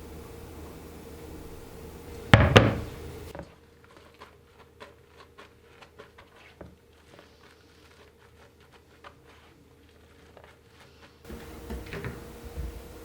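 A single heavy thump a little over two seconds in, then a long run of light clicks and taps from kitchen items being handled and set down.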